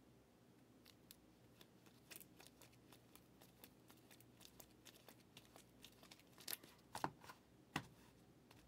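Faint clicks and rustles of plastic-sleeved trading cards being handled and flipped through, with a few louder clicks toward the end.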